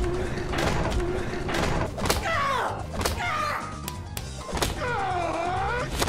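Music with a steady bass pulse and repeated sharp percussive hits, over which pitched sounds slide down and back up in pitch several times.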